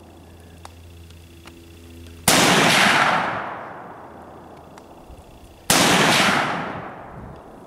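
Two rifle shots from an M1 Garand chambered in .308, fired about three and a half seconds apart, the first a couple of seconds in. Each crack rings out and dies away over about a second and a half.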